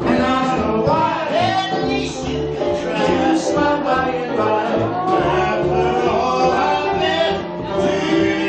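A live swing band playing, with men singing the vocal over plucked upright bass notes.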